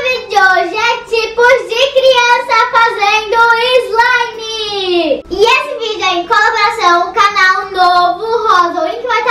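A young girl singing, with a long held note about four seconds in that slides down in pitch.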